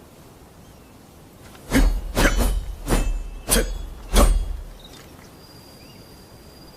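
Naginata combat sound effect: a quick flurry of about six weapon strikes, each with a brief ringing tail, starting about two seconds in and over by about four and a half seconds.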